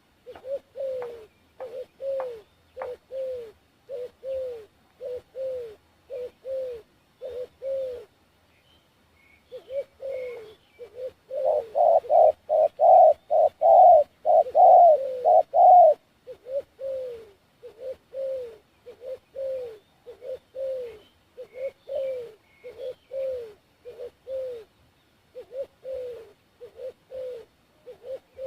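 Dove cooing in a long series of short, falling coos, about two a second. The series breaks briefly about a third of the way in, then comes back louder and denser for a few seconds before settling back to the same pace.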